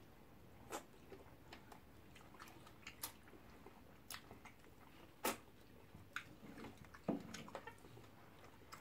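Close-up eating sounds: scattered wet mouth smacks and clicks of chewing and of fingers being licked, about one every second or so, with quiet between them.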